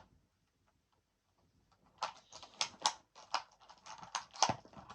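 A run of sharp, irregular clicks and crackles from handling a toy figure's packaging, starting about two seconds in, with the loudest click near the end.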